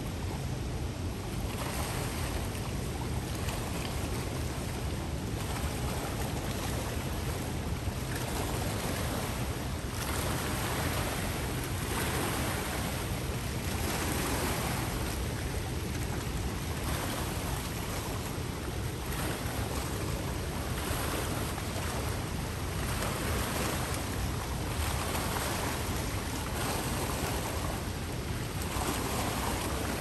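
River waterfall rushing steadily: a continuous hiss of falling water with a low rumble beneath, swelling and easing every couple of seconds.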